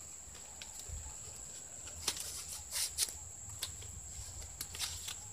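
Coconut palm leaves rustling and crackling as they are handled and threaded through a woven basket, with scattered crisp crackles clustered in the middle.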